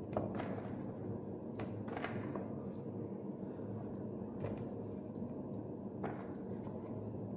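Cut raw sweet potato and potato pieces being handled and dropped into a glass bowl: several scattered light knocks and clatters over a steady low background hum.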